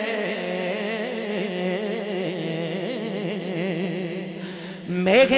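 A man's voice singing a naat, holding a long wavering note over a steady low drone. It fades briefly, then a louder sung phrase begins near the end.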